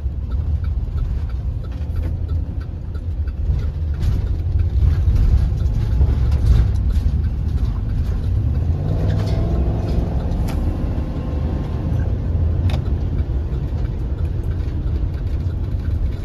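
Vehicle engine and road rumble heard while driving, with the engine pitch rising and falling about halfway through.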